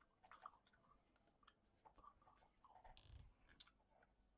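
Faint computer mouse clicks over near silence, with one sharper click about three and a half seconds in.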